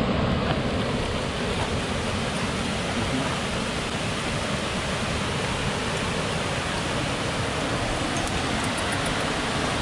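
Waterfall rushing steadily, an even, unbroken noise.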